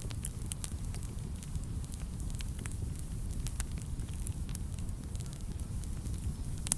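Wood fire burning in a fireplace: a steady low rumble of the flames with scattered sharp crackles and pops, one louder pop near the end.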